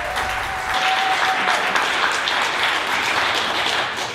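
Audience applauding for an award winner, with one held high note over the first second and a half. The applause dies away near the end.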